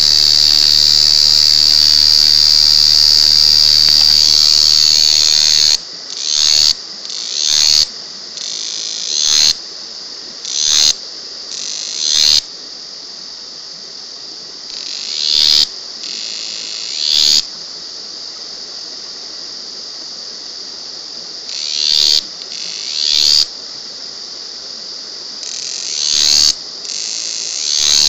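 A cicada singing at very close range: a loud, continuous high buzz for about the first six seconds, then a run of short phrases that each swell up and cut off abruptly, mostly in pairs, over a quieter steady buzz.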